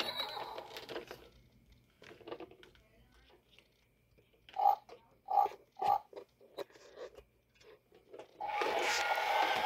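Fisher-Price toy tractor's electronic farm-animal sounds from its speaker as the animal figures in its trailer are pressed: three short pig oinks about halfway through, with light plastic clicks around them. Near the end a louder, steady electronic sound starts up.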